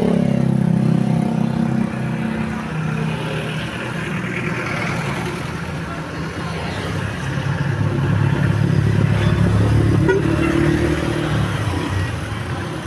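Basuri V3 'telolet' musical bus horn playing held notes that step from one pitch to another, over the noise of the bus.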